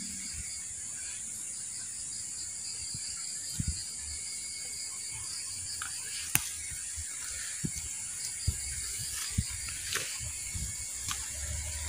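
Leaves rustling and chili stems snapping in short sharp clicks as bird's eye chilies are picked by hand from the bush, about a dozen scattered clicks and soft knocks. A steady high-pitched trill runs underneath.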